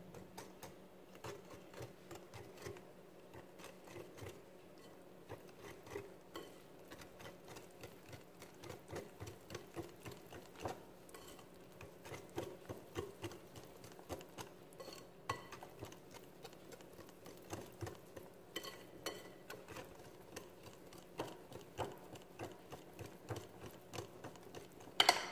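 Wire whisk beating chocolate cake mix into a batter in a glass bowl: quick, uneven clicking and scraping of the wires against the glass, several strokes a second, as the dry mix is worked into smooth batter. A sharper, louder click comes just before the end.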